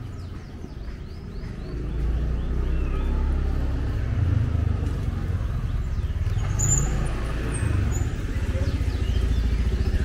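A motor vehicle's engine running close by: a steady low rumble that gets louder about two seconds in and stays up.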